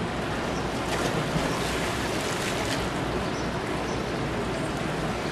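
Steady wash of ocean surf mixed with wind rumbling on the microphone.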